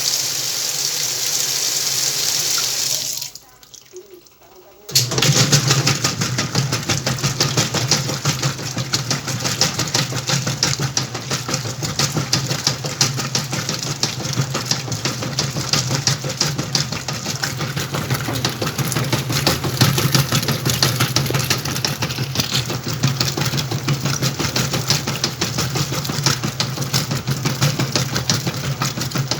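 Whirlpool washing machine: water rushes into the tub for about three seconds, then stops. After a short pause the motor starts and the machine runs steadily, with a low hum and a fine, continuous rattle.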